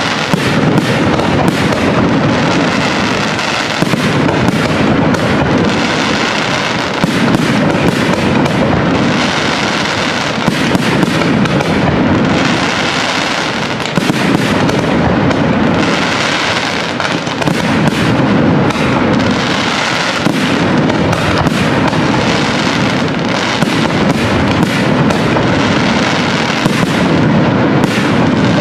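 Aerial firework shells bursting in a dense, continuous barrage: overlapping booms with many sharp bangs on top and a steady crackle.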